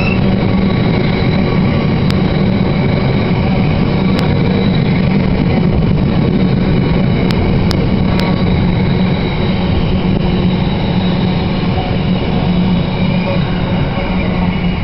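A long train of loaded coal hopper wagons rolling past, a steady heavy rumble and rattle of wheels on the rails, with a few sharp clicks through the first half.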